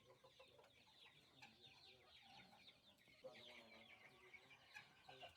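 A flock of chickens calling faintly: many short, high, overlapping peeps that fall in pitch, with a few lower clucks mixed in.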